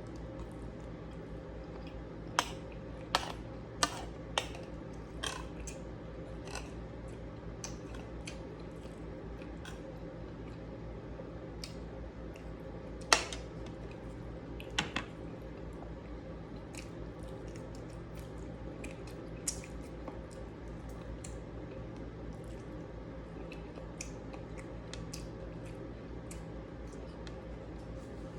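Someone eating a meal: chewing, with scattered sharp clicks of utensils against a plate, over a steady low background hum.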